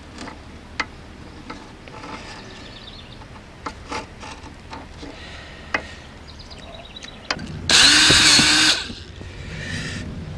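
Small clicks and handling noises while sealant is squeezed from a tube, then about eight seconds in a cordless drill runs loudly for about a second, driving a screw to fasten the hatch frame.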